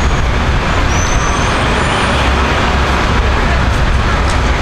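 Loud, steady street noise with a deep engine rumble, like heavy vehicles idling, and a faint high whistle about a second in.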